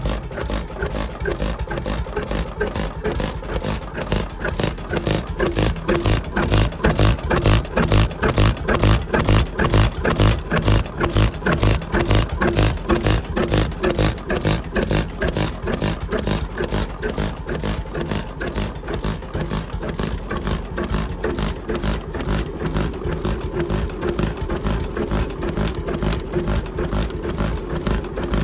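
Two-stroke hot-bulb (semi-diesel) stationary engine running with a steady, even beat of firing strokes, a little louder for several seconds about a quarter of the way in.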